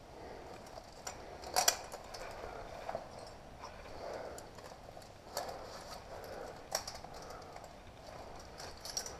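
Climbing gear clinking: a few sharp metallic clicks of carabiners and hardware knocking together as slings are handled, a pair about one and a half seconds in and single ones later. Under them is a soft rustle of clothing and hands against the rock.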